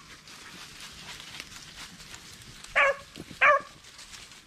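Rabbit hound barking twice in quick succession about three seconds in, two short, sharp barks.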